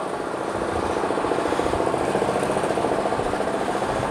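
A truck's diesel engine idling steadily, a fast even throb.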